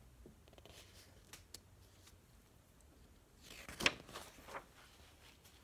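A picture book's paper page being turned: a short papery rustle and swish about four seconds in, after a few faint taps.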